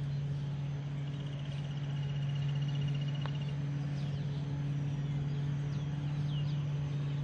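Steady low hum with birds chirping, one bird giving a rapid trill for a couple of seconds near the start. About three seconds in there is a faint tap of a putter striking a golf ball.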